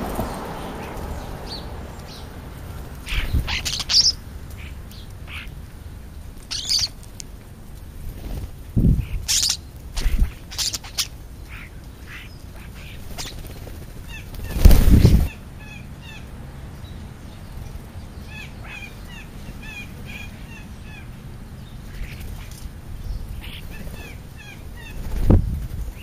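Birds feeding at a scrap pile right by the microphone: a few bursts of wing-flapping, the loudest about halfway through, with short repeated chirps in the second half.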